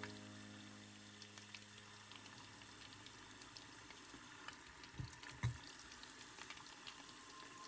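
Panko-breaded chicken strips deep-frying in a pot of hot oil: a steady sizzle with scattered small crackles and pops. Two dull knocks come about five seconds in.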